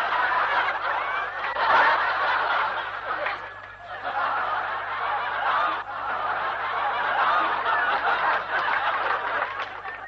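Sitcom studio audience laughing in a long wave that dips briefly about four seconds in, swells again, then fades away near the end.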